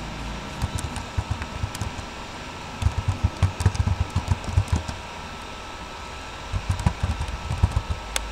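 Runs of dull, irregular thumps with a few light clicks, over a steady faint electrical hum.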